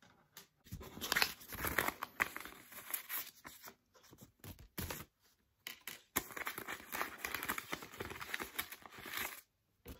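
Paper guitar-string envelope crinkling and tearing as it is handled and opened, in irregular rustles with a short pause around the middle.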